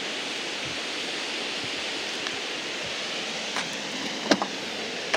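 Steady rushing noise of flowing river water, with a few sharp clicks in the second half, the loudest a little past four seconds in.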